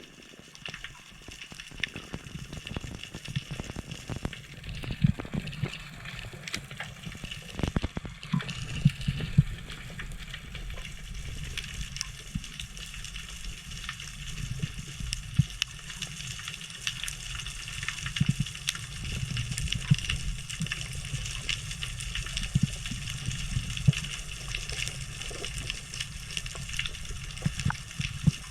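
Underwater ambience: a continuous dense crackle of tiny clicks over a low rumble of moving water.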